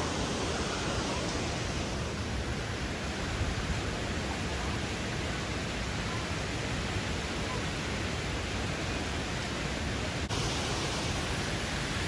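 Steady rush of falling water from the Triberg waterfall cascades on the Gutach river, an even hiss with no breaks.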